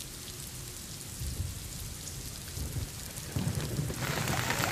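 Steady hiss of rain, with low rumbles now and then; the hiss grows louder about four seconds in.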